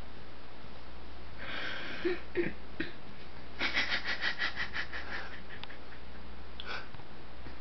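A person wheezing: a breathy hiss, a few short catches of breath, then a quick run of wheezing pulses starting just under four seconds in.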